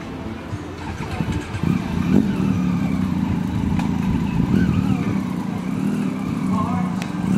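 Custom trike's engine running through its open exhausts, revving and growing louder about two seconds in.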